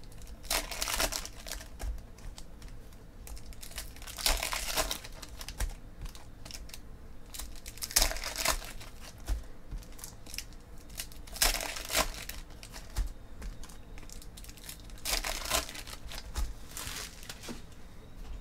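Foil wrappers of 2014 Panini Prizm football hobby packs crinkling and tearing as they are opened and the cards handled, in short spells every three to four seconds, about five times.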